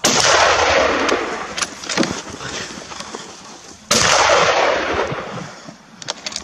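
Two shots from a hunting gun about four seconds apart, each echoing for two to three seconds after it.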